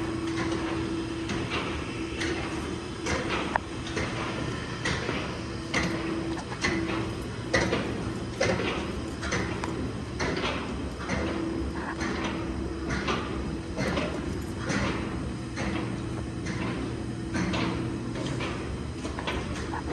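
Heavy-duty 48-inch metal hinge pan conveyor running: a steady drive hum with a regular clacking of the steel pans about twice a second.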